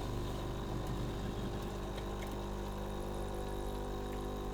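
Lavazza coffee pod machine's water pump running with a steady hum as it pushes water through the machine.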